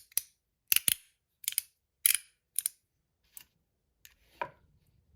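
Stainless steel stonewashed CP3 slider fidget being slid back and forth. Its metal parts snap together in sharp clicks, often doubled, about one or two a second, with the clicks growing fainter near the end.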